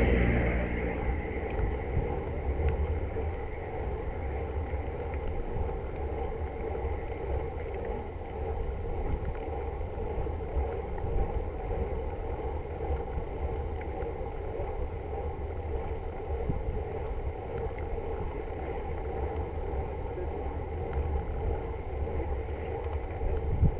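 Steady low wind rumble on the microphone of a bike-mounted camera, with the road noise of road bicycles riding along in a group.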